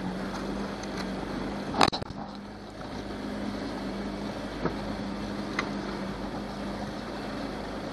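Johnson 90 hp V4 two-stroke outboard motor running steadily at cruising speed, with a steady hum over the rush of water and wind. A single sharp knock about two seconds in.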